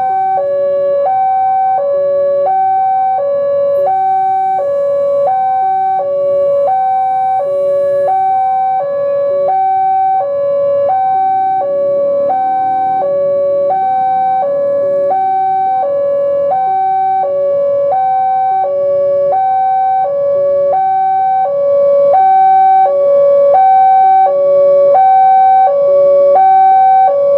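Railway level-crossing warning alarm: an electronic two-tone chime alternating high and low about once a second, sounding steadily and growing louder about three-quarters of the way through.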